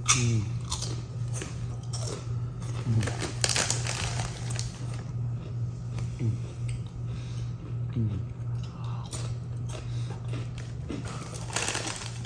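A person chewing and biting food close to the microphone: irregular crunches and wet mouth sounds, over a steady low hum.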